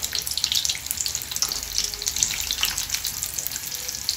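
Vegetable spring rolls frying in hot oil in a pan, a steady dense crackle and sizzle.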